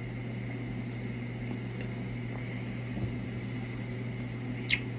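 Quiet room tone: a steady low hum, with a soft bump about three seconds in and a short sharp click near the end.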